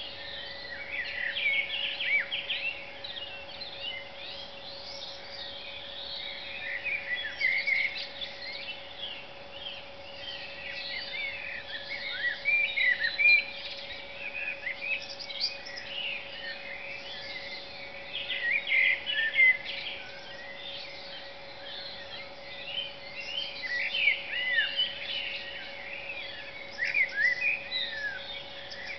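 Dawn chorus: many songbirds singing at once, their overlapping high chirps and whistled phrases running without a break. A steady faint hum lies underneath.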